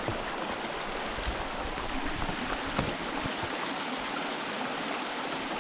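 Stream water rushing steadily, an even noise with one brief click near the middle.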